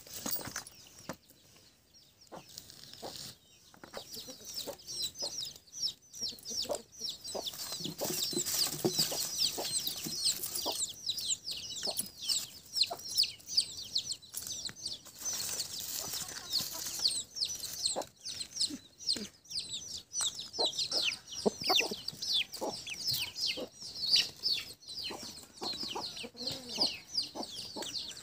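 Chickens clucking over a dense stream of quick, high, falling chirps that starts about four seconds in, with scattered sharp clicks and knocks.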